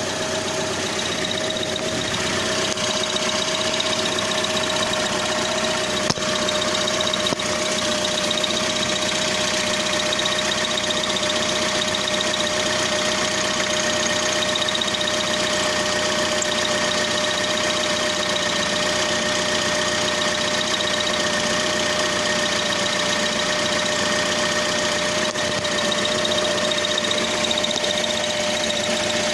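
Toyota Corolla E150 (1.8) running steadily, with a strange steady whistle from the gearbox over the engine sound.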